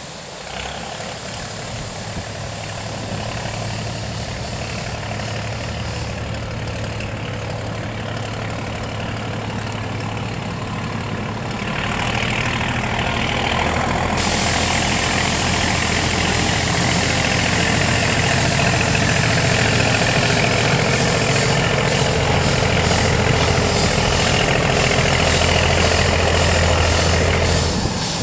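Hudswell Clarke 0-6-0 diesel shunting locomotive's engine running as the loco moves slowly along the track toward and past, growing louder. The engine note shifts a few times and rises clearly about twelve seconds in.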